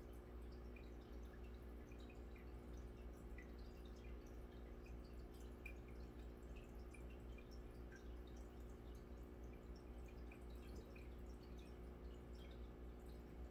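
Faint aquarium bubbling: small irregular drips and pops of air bubbles breaking at the water surface, over a steady low hum.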